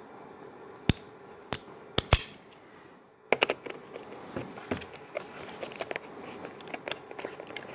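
Four sharp clicks of a Leatherman multi-tool being opened out to its screwdriver, then quick light ticks and short scrapes of a screw being driven in by hand.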